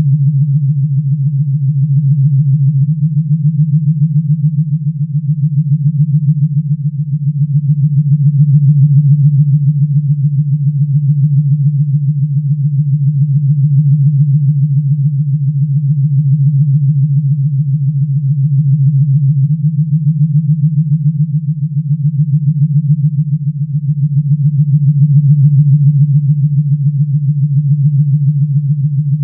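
Star Trek sound effect: a loud, low electronic hum with a fast fluttering pulse, swelling and easing slowly in loudness, like a starship's ambient engine drone.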